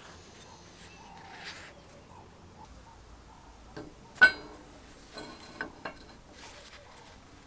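A small metal part clinks sharply once about four seconds in, ringing briefly, followed by a few lighter clicks and taps as the drill parts are handled.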